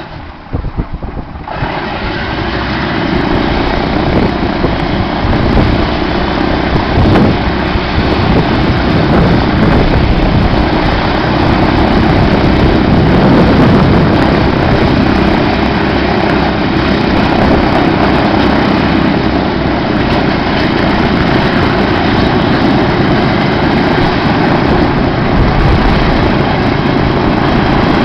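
A B-17G Flying Fortress's Wright R-1820 Cyclone nine-cylinder radial engine starts: it sputters unevenly, catches about a second and a half in, and builds over the next couple of seconds to a loud, steady run.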